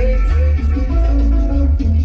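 Loud salsa-style Latin dance music with heavy bass, played over a sonidero's sound system.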